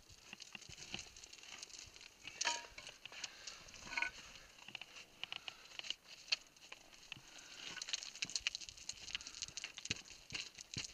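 Boots and gloved hands scrabbling over loose scree and broken rock during a downclimb: an irregular run of small crunches, clicks and scrapes, with a couple of louder knocks about two and a half and four seconds in.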